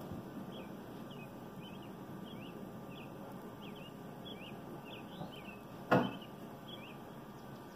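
Outdoor ambience with steady background noise and a small bird chirping over and over, short high chirps at an irregular pace. A single sharp knock about six seconds in is the loudest sound.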